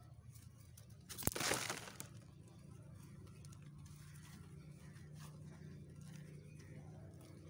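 Dry white cement lumps crumbled by hand: a sharp crack about a second in, with a brief gritty crunch, then faint scattered crumbles falling over a low steady hum.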